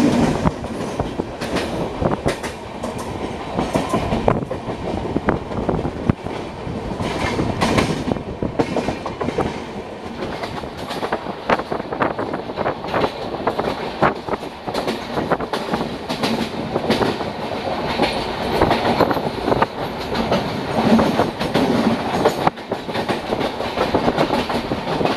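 Passenger train running along the track, its wheels clattering over the rails with an irregular stream of clicks and knocks over a steady rumble.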